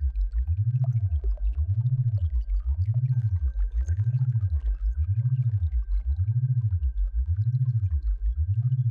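Synthesized sound-therapy tones: a loud low hum glides up and down in pitch in an even, repeating wave about once a second. Under it runs a faint steady high tone, with scattered faint ticks.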